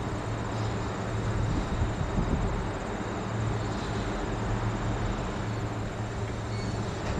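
Steady machine noise: a constant low hum under an even hiss, with a faint high whine, unchanging throughout.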